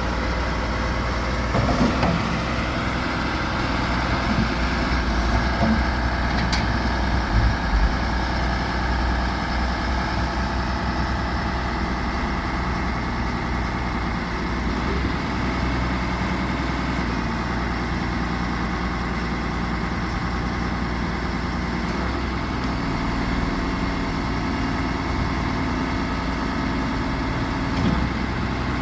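John Deere 710D loader backhoe's diesel engine running steadily at idle, with a few brief clunks in the first several seconds.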